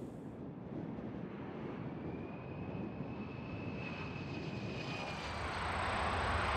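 Aircraft engine noise, a rushing sound that grows steadily louder, with a faint whine that rises and then falls in pitch in the middle.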